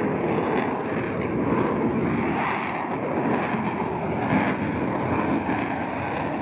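Lockheed Martin F-35B Lightning II's single Pratt & Whitney F135 jet engine running at high power: a steady jet roar with scattered short crackles.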